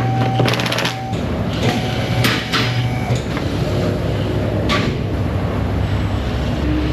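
A rapid run of fine clicks, then a few separate knocks and clatters from hand tools and car parts being handled, over a steady low shop hum.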